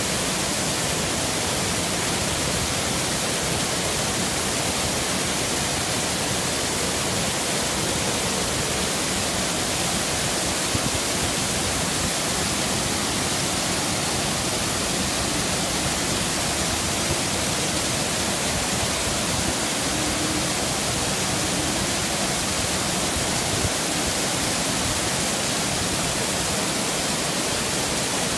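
Small man-made waterfall: water pouring in a sheet over a wall into a pool, a steady rushing.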